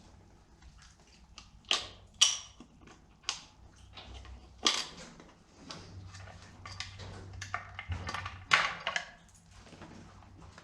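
Irregular sharp knocks and clatters, some single and some in quick runs, the loudest about two seconds in and again near the end.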